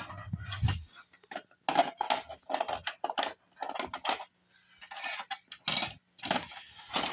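Hard plastic pieces of a toy house clicking and clattering as they are handled and fitted together, in a string of short irregular knocks.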